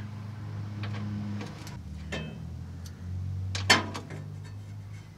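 Handling noise under a pickup truck at the oil drain bolt: a few light clicks and one sharper knock about three and a half seconds in, over a low steady hum.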